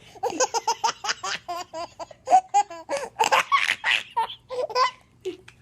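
A baby laughing in quick runs of short laughs that trail off about five seconds in.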